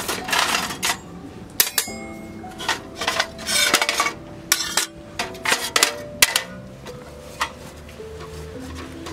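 Cookware and utensils clinking and clattering, about a dozen sharp knocks and clinks at uneven intervals, over soft background music.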